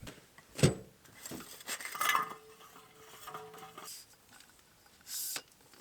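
Hard objects being handled and knocked together, clinking and clattering like camp cookware, with a sharp knock about half a second in and a short ringing tone partway through. A brief hiss comes near the end.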